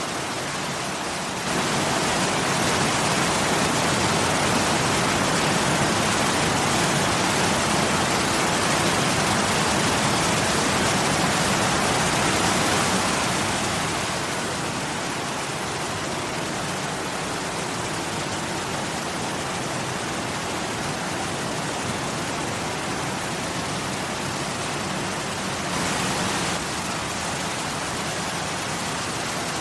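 Waterfall: a steady, even rush of falling water. It grows louder about a second and a half in, settles lower about halfway through, and swells briefly near the end.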